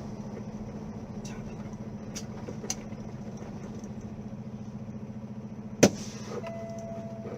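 Car running with a steady hum and a few faint clicks, then a single loud, sharp impact bang almost six seconds in, followed near the end by a steady high tone.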